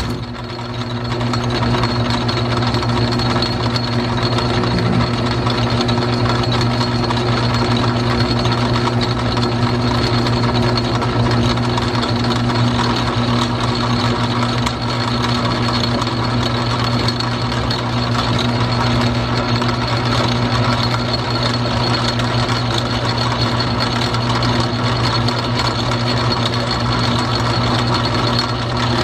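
Small metal lathe started up and running steadily under power, with a constant motor hum and the whir of its geared drive. The lathe is set up for single-point thread cutting with a hand-ground tool. It comes up to full level within about two seconds of starting.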